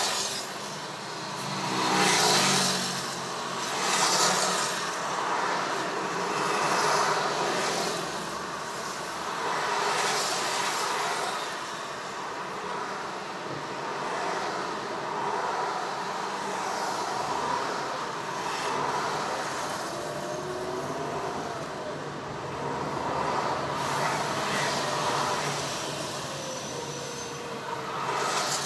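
Slow city traffic heard from inside a car: the running engines of nearby cars, trucks and buses. The sound swells and fades several times and is loudest in the first few seconds.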